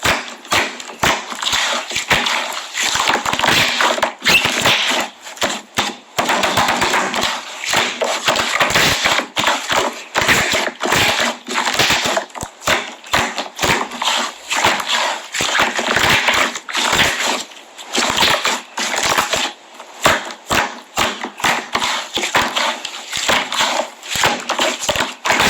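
Milky liquid slime being squeezed and poked close to the microphone: a continuous run of loud, wet clicks, pops and crackles, with brief dips between handfuls.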